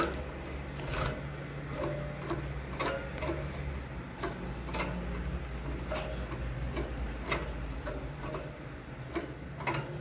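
Canary hopping back and forth between perches in a wire cage: irregular sharp taps and clicks of its feet landing on the perch and wires, about one or two a second, over a steady low hum.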